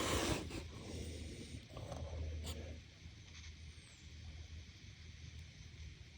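Faint handling sounds of a measuring tool being adjusted: soft rustling and one light click about two and a half seconds in, over a low steady hum.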